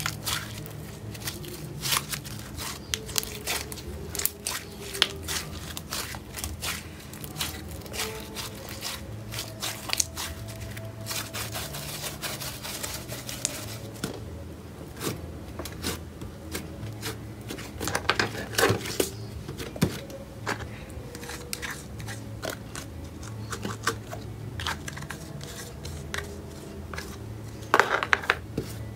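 Pink cloud slime mixed with instant snow being kneaded and stretched by hand: a continuous run of small crackles, crunches and tearing sounds, louder in a cluster about two-thirds through and again near the end. A low steady hum runs underneath.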